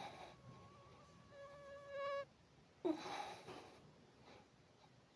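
Mosquito whining close to the microphone: a thin, steady buzzing hum that swells and grows louder about two seconds in, then fades. About three seconds in comes a short noisy burst.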